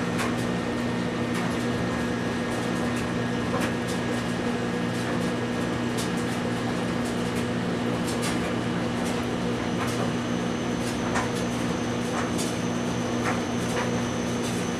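Steady low hum of several even tones, with a few faint clicks scattered through it.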